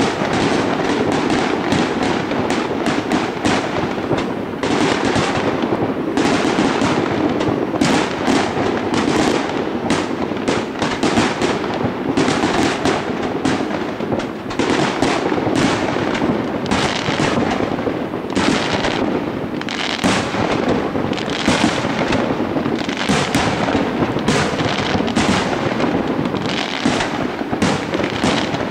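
Fireworks display: aerial shells bursting in quick, continuous succession, a dense run of bangs and crackle with no pause.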